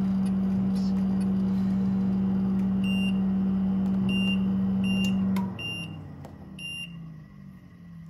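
Rheem hybrid heat pump water heater running with a steady, loud hum that cuts off abruptly about five and a half seconds in as the unit stops heating. Five short high beeps from its control panel as its buttons are pressed.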